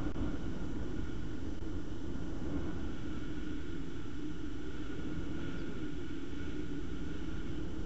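Thunderstorm noise: a steady low rumble under an even hiss.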